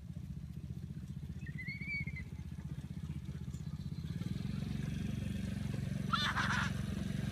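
Small engine of a youth quad (ATV) running steadily as it is ridden across grass, growing louder from about four seconds in as it comes closer. A child's short high call sounds near the end.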